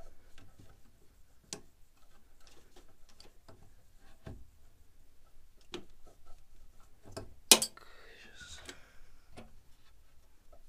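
Pliers working a rubber power steering return hose off its metal fitting: scattered small clicks and ticks of metal on the hose and clamp. One sharp, loud click comes about seven and a half seconds in, followed by about a second of scraping.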